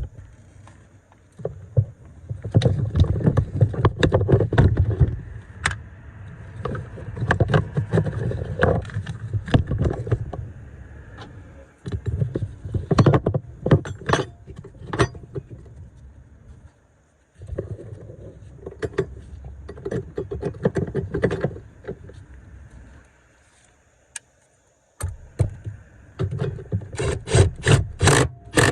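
Metal tools and battery hardware clinking, rattling and scraping in repeated bursts of several seconds each, with sharp clicks, as a car battery's terminals and hold-down are worked on. A quick run of clicks comes near the end.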